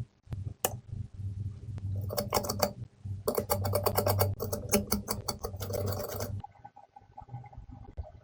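Rapid fine crackling ticks from soldering the phone's charging connector with flux under heat. They come in two stretches, a short one about two seconds in and a longer one of about three seconds, over a low hum, and are followed by a few faint clicks.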